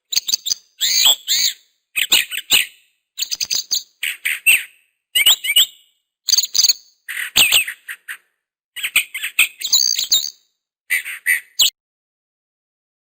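Bird chirping in quick phrases of sharp, sweeping high notes, each phrase under a second long with short silent gaps between. The chirping stops near the end.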